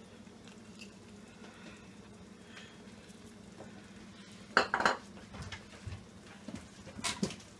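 Kitchen utensils clinking and clattering against a pan and dishes. A short burst of clatter comes about halfway through and another near the end, with a few lighter knocks between, over a faint steady hum.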